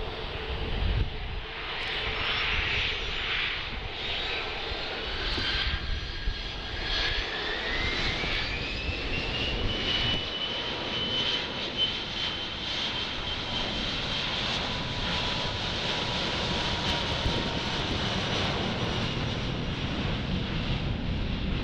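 Jet airliner's engines spooling up for a takeoff roll: a whine climbs in pitch about seven seconds in, then holds steady over the engines' broad rumble as the plane runs down the runway.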